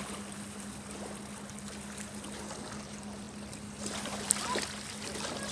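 Boat engine idling with a steady low hum over wind and water noise, with a few small clicks and one sharp tick about four seconds in.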